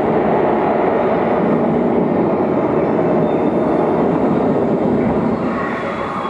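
Digital ambient soundscape: a loud, steady wash of dense noise with no clear melody, easing off slightly near the end.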